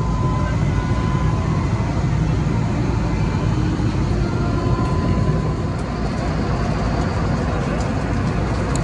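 Steady low rumble of a passenger jet's cabin: engine and air noise, even throughout.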